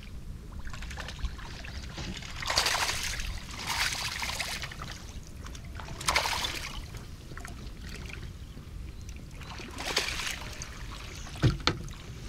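A hooked herabuna (Japanese crucian carp) thrashing at the surface close to the bank, four short bursts of splashing as it is played in and netted, over a steady low wind rumble. A sharp thump comes near the end.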